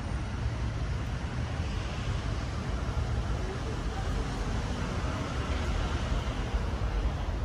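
Steady street traffic noise: an even low rumble with a hiss above it and no single event standing out.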